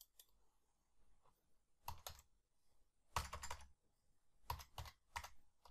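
Computer keyboard being typed on: short runs of keystrokes entering a string of digits, starting about two seconds in.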